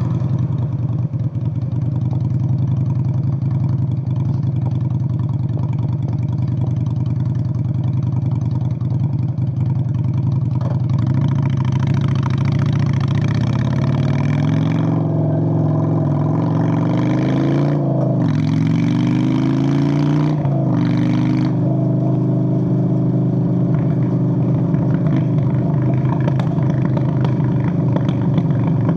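Straight-piped 1997 Honda Steed VLX 600 V-twin engine running steadily at first, then accelerating from about halfway with its pitch rising. The pitch drops back twice, at gear changes, before it settles at a steady higher speed near the end.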